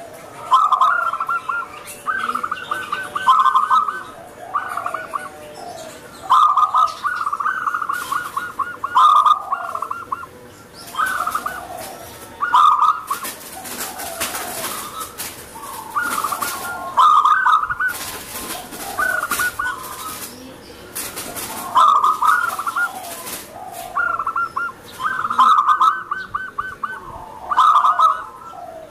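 Zebra dove (perkutut) singing: repeated cooing phrases, each with a fast trill, one every second or two. Bursts of high hiss come and go in the middle of the stretch.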